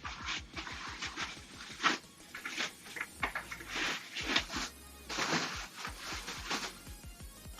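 Background music under irregular rustling and clicking as plastic cat-wheel parts and their packaging are handled.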